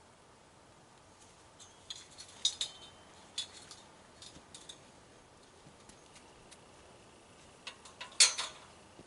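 Scattered light clicks and clinks over a quiet background, a few together about two to three seconds in and the loudest near the end.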